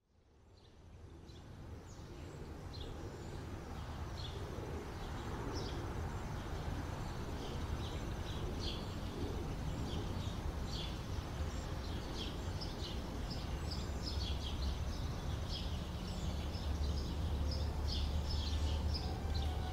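Outdoor ambience: a steady low rumble with many short, high chirps of small birds scattered throughout, fading in over the first couple of seconds.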